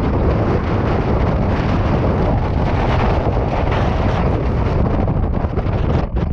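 Antarctic blizzard wind blasting against the microphone: a loud, steady rush of wind noise that drops briefly near the end.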